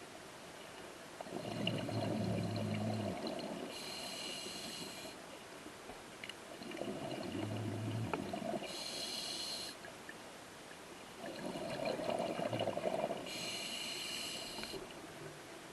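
A scuba diver breathing through a regulator underwater, three breaths about five seconds apart. Each breath is a low rumble followed by a shorter, higher hiss.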